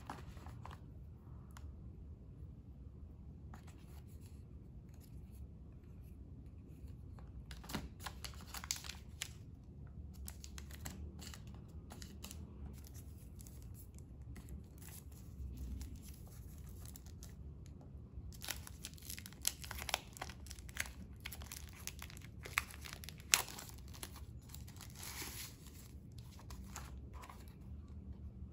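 Clear plastic packaging bags crinkling and rustling as they are handled, on and off, with a quieter stretch in the middle. A single sharp click about three-quarters of the way through is the loudest sound.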